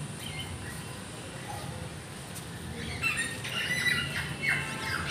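A flock of caged cockatiels chirping and squawking over a low background rumble. The calls turn busy and overlapping about three seconds in.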